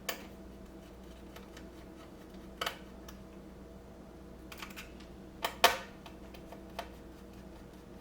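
Scattered small clicks and taps of a Phillips screwdriver and loose screws as the laptop screen's mounting screws are taken out, a double click about five and a half seconds in the loudest, over a faint steady hum.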